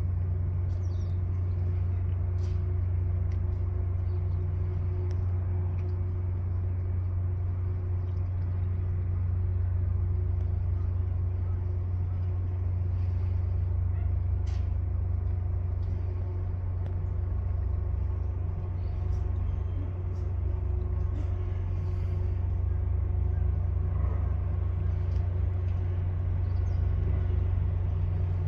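Steady low drone of a car ferry's engines heard on board, unchanging throughout, with a few faint ticks over it.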